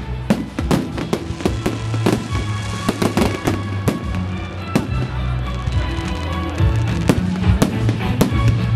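Fireworks going off in a display: a rapid, uneven string of sharp bangs and crackling reports, with music playing underneath in held notes.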